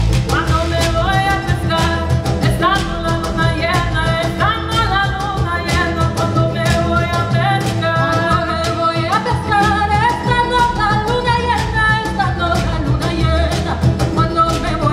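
Live band music with a woman singing a melody over a steady, driving beat.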